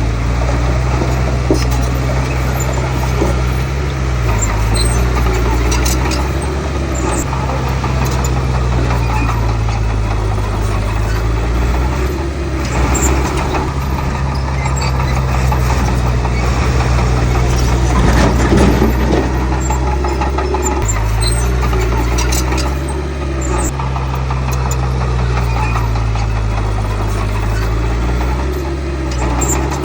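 Diesel engine of a Komatsu D31P crawler bulldozer running steadily under working load, its pitch shifting now and then as the load changes, with occasional short metallic squeaks and clicks.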